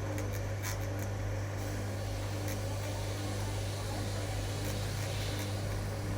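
Electrolux washing machine running with a steady, even low electrical hum, with a few light clicks in the first second.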